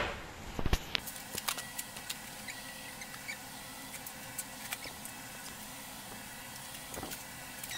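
Plastic cling wrap crinkling in faint, irregular small crackles as it is pressed and smoothed over a plate's rim, with a sharper knock or two in the first second.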